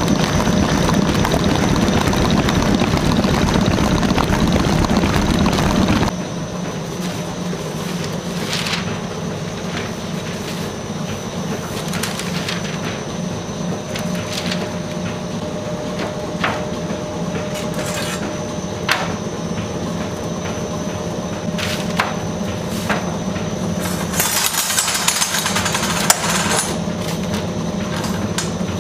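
A planetary stand mixer whips sponge-cake batter in a steel bowl with a loud, dense whirring that cuts off about six seconds in. A steady background hum follows, with scattered light knocks and clinks as steel cake rings are handled on a paper-lined baking tray, and a brief rustling burst near the end.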